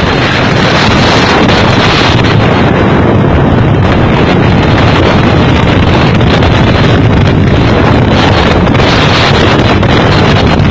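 Strong storm wind blasting the microphone amid heavy wind-driven rain: a loud, steady rush of noise with no let-up.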